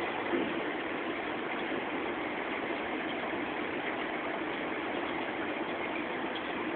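A steady mechanical hum with an even hiss.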